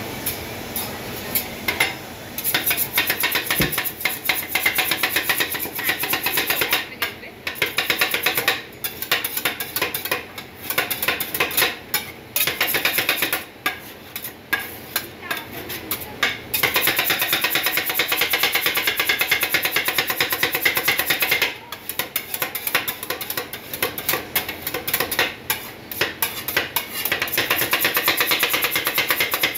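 Two metal spatulas chopping and scraping on a stainless-steel ice-cream cold plate, a fast clatter of taps with brief pauses, as rasgulla and cream are chopped together for rolled ice cream.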